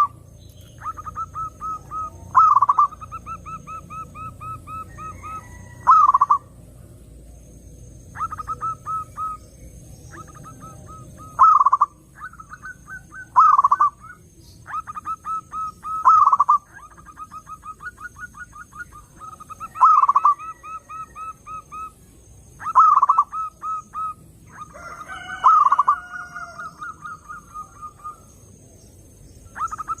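Zebra doves (perkutut) cooing: repeated phrases of quick staccato notes, each run ending in a louder drawn-out coo, every few seconds.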